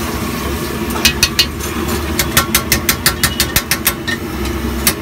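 Metal spatula striking an iron wok: a few sharp taps, then a quick regular run of about seven taps a second, over a steady low rumble.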